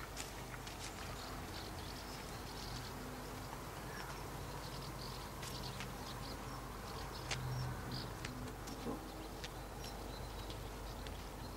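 Faint rural outdoor ambience: scattered short high chirps and ticks, like small birds or insects, over a steady low hum, with a slightly louder low rumble about seven seconds in.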